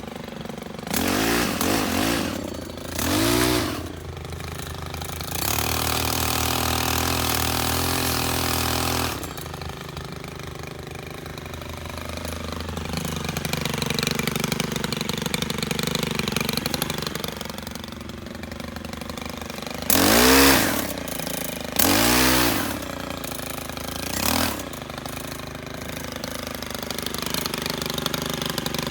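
STIHL KM 131R pole saw power head, a small 4-MIX engine, idling and revved up in short bursts several times, and held at high speed for a few seconds near the start.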